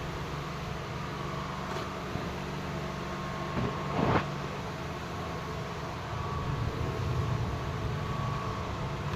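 Steady low machine hum, with one brief clatter about four seconds in.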